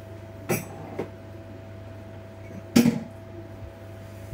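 A few knocks and bumps of things being handled: two light ones early and a louder, longer bang about three seconds in, over a steady low electrical hum.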